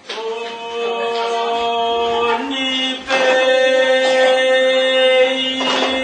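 Music of voices chanting together, holding long notes in chords that shift every two to three seconds, with a few soft noisy swishes.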